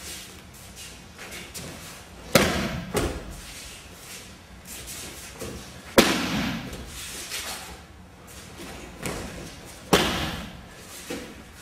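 Aikido breakfalls: thrown partners hit the dojo mat three times, about four seconds apart. Each is a sharp thud with a short noisy tail, and softer knocks follow the first and the last.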